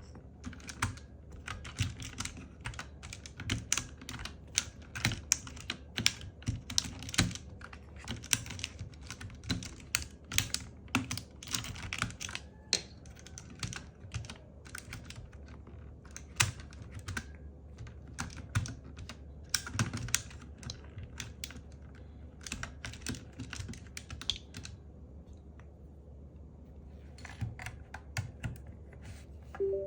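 Typing on a Zifriend KA646 mechanical keyboard: quick, irregular key clicks several a second. They stop briefly about five seconds before the end, then a few more come.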